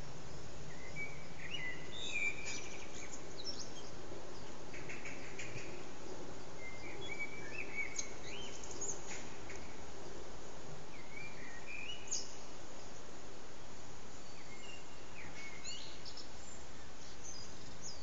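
Eurasian blackbird singing: four warbling phrases a few seconds apart, each ending in brief high squeaky notes, over a steady low background hum.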